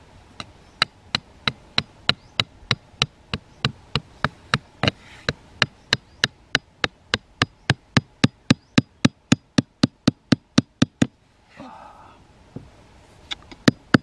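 Claw hammer driving a thin wooden stake into sandy ground: a steady run of sharp strikes, about three to four a second, louder in the second half, stopping about eleven seconds in, then a few more strikes near the end.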